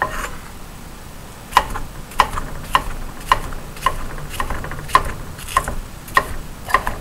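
Knife chopping green bell pepper on a wooden cutting board: a steady run of blade-on-board knocks, a little under two a second, starting about a second and a half in.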